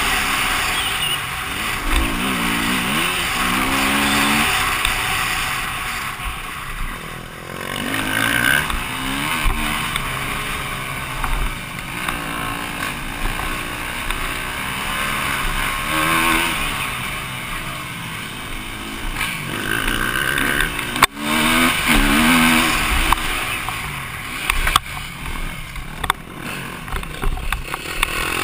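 KTM EXC-F 250's single-cylinder four-stroke engine being ridden hard, its pitch rising and falling again and again as the throttle opens and closes. A steady rushing noise runs under it, with a sharp knock about three-quarters of the way through.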